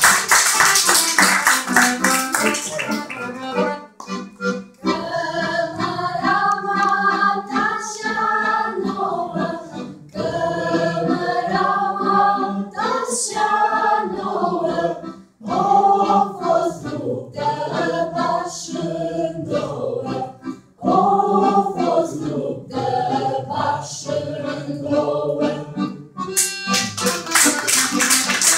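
Three girls singing a folk song together without accompaniment. It opens with a few seconds of lively accordion music and rhythmic hand clapping, and the accordion comes back in near the end.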